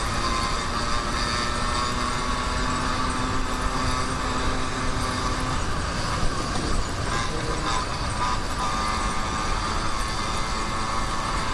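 YD100 two-stroke motorized-bicycle engine running steadily under way, with a low pitch that shifts slightly a few seconds in.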